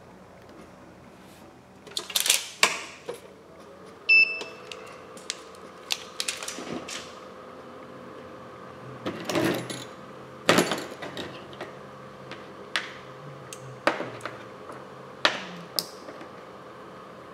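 Irregular clicks and taps of a cracked iPhone 11 being handled and turned over on a workbench, with a short beep about four seconds in. A faint steady hum runs underneath from then on.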